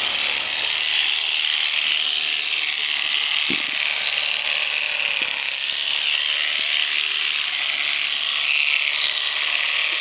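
Electric shearing handpiece running steadily as it cuts through alpaca fleece, a high, even buzz. A brief low thump about three and a half seconds in.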